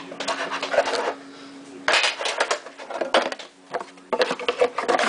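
Rustling and scraping of a trading-card tin's packaging being opened by hand, in three bursts with short pauses between.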